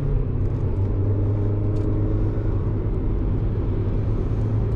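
Mazda NB Roadster's four-cylinder engine running at a fairly steady pitch while driving on track, heard from inside the cabin.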